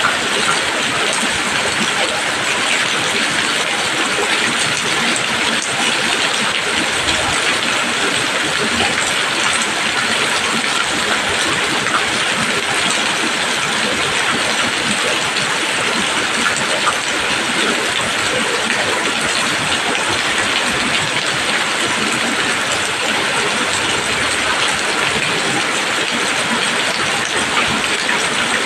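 Steady rain falling on leaves, a constant dense patter of drops with no letup.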